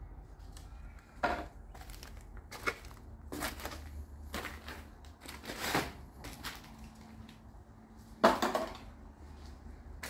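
Footsteps crunching and scuffing over papers and broken debris on a floor, several uneven steps with the loudest about eight seconds in, over a low steady rumble.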